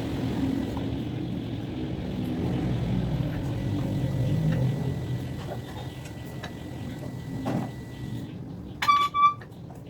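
Motor vehicle running close by with a steady rumble, then a horn giving two short beeps near the end.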